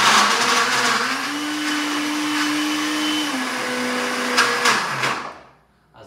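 Countertop blender running on speed 2, chopping raw carrot pieces with no liquid. The motor pitch rises about a second in and drops back after three seconds as the carrots jam at the bottom of the jar, with a couple of knocks near the end, and the motor cuts off about five seconds in.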